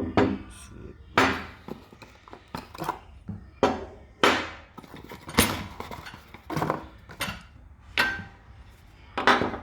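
New disc brake pads with steel backing plates clinking and knocking against each other and their packaging as they are handled: about a dozen irregular sharp clinks.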